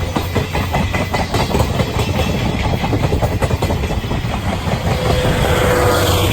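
Steam-hauled passenger train (C57 180 with 12-series coaches) rolling past, its wheels clattering in quick succession over the rail joints above a steady rumble.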